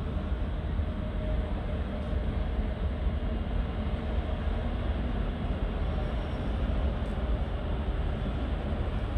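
Passenger train rolling through a rail yard: a steady rumble of the coaches on the tracks.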